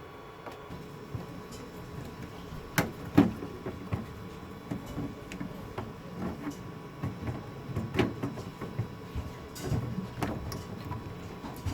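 Scattered knocks and clicks of a TV power supply board and its connectors being handled and fitted back into the chassis. The loudest knocks come about three seconds in and again about eight seconds in.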